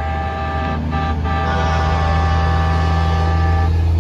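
A semi truck's air horn blowing one long steady blast, broken twice briefly about a second in, and cutting off shortly before the end. Under it runs the steady low rumble of the passing rig's diesel engine.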